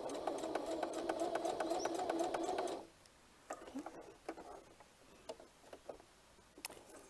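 Singer Heavy Duty HD4411 sewing machine running at a steady speed with a fast, even stitch rhythm as it stitches through thick, oiled vinyl layers. It stops abruptly about three seconds in, leaving only a few light clicks.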